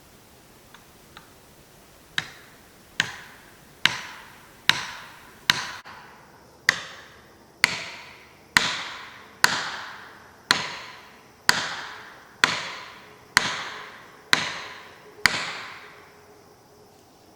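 A felling wedge being driven into the back cut of an oak by repeated hammer blows: about fifteen sharp strikes roughly a second apart, each ringing briefly, starting after two light taps.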